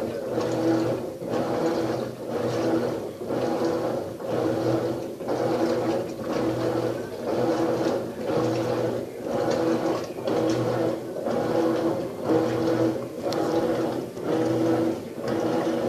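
Maytag top-loading washing machine agitating during its rinse cycle: the motor hums and the water swishes back and forth in a steady rhythm of about three strokes every two seconds.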